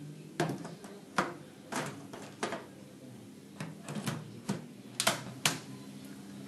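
LED tubes being fitted into a fluorescent troffer's lampholders: a string of sharp, irregular clicks and knocks as the tubes are handled and their pins seated, the two loudest close together about five seconds in.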